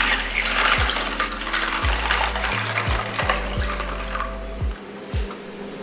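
Water pouring and splashing into a container of loose keyboard keycaps, tapering off about four and a half seconds in, with background music underneath.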